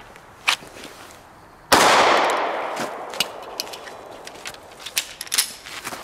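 A single pistol shot from a compact semi-automatic handgun, sudden and loud, about two seconds in, with a long tail that dies away over a couple of seconds. A few short, sharp clicks come before and after it.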